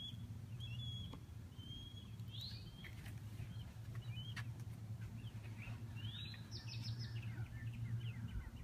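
Several birds chirping and calling, with short whistles and a few swooping calls, over a steady low hum.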